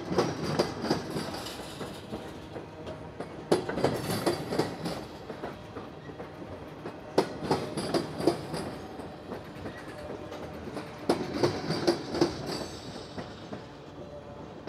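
Tank cars of a Norfolk Southern freight train rolling slowly past, wheels clacking over a rail joint in a cluster of knocks about every four seconds as each pair of car trucks crosses it, over a steady rolling rumble.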